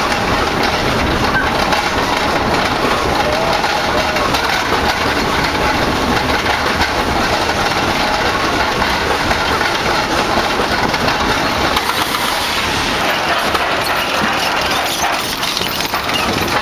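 The Big Bad Wolf suspended steel roller coaster train running along its track, heard from on board as a loud, steady rushing noise with wind on the microphone.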